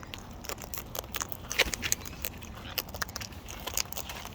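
A bird eating at close range: irregular sharp cracks and crunches of a beak working on nuts or seed, with one louder crack about a second and a half in.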